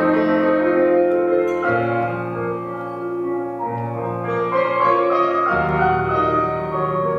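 Piano accompaniment for a ballet barre exercise, playing slow, sustained chords that change about every two seconds.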